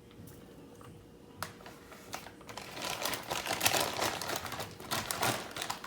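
Wild blueberries being poured into a glass mason jar of oats: a rapid patter of small clicks and rattles, sparse at first, then thick and louder from about halfway through.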